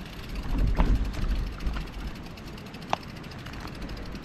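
Mountain bike being walked up a rocky trail: a low wind rumble on the microphone with a few scattered knocks and clicks, a sharp clink about three seconds in.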